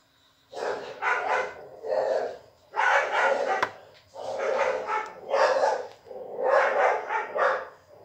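A dog barking repeatedly, in bouts of several barks with short pauses between.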